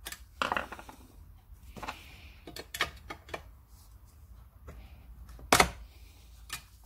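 A flat-blade screwdriver twisting and prying at a horseshoe clip on a parking brake shoe's pivot pin: scattered small metal clicks and scrapes, with one sharper click about five and a half seconds in.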